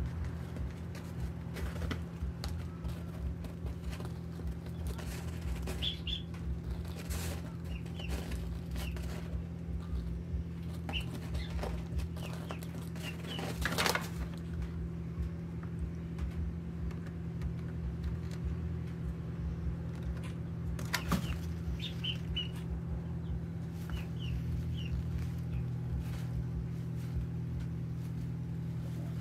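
Domestic hen moving about a nest box, with a brief wing flutter about halfway through as she gets onto its rim and a sharp knock about two-thirds of the way in. Short high chirps come every few seconds over a steady low hum.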